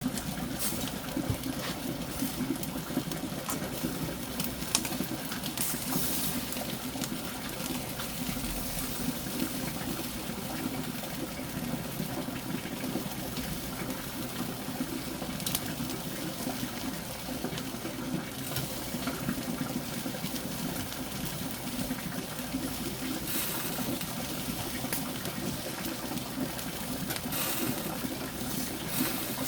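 Water of a valley stream running steadily, with scattered small clicks and splashes.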